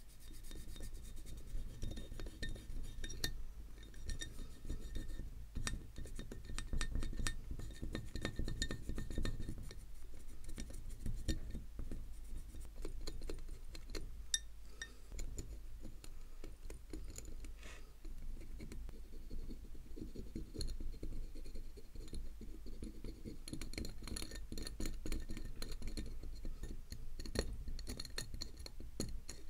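Light clinks and taps of small metal watch parts and tools handled on a workbench, many small clicks over a low rumble.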